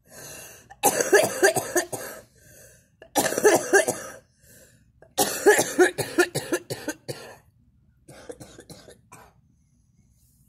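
A girl coughing hard in three fits, each a quick run of rasping coughs, the last one the longest. The coughing comes from smoking. A few faint clicks follow near the end.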